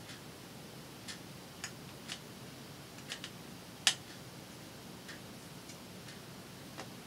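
Scattered light clicks and taps from hands handling paper, ribbon and glue at a craft table, about nine at uneven spacing, the sharpest one about four seconds in.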